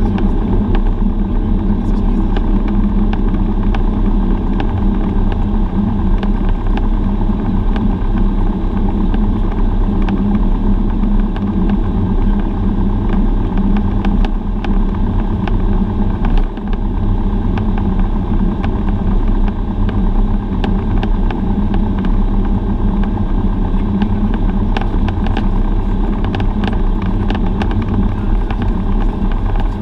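Cessna 172's piston engine and propeller running steadily while the plane taxis, heard inside the cockpit as a loud, even drone, with scattered light clicks.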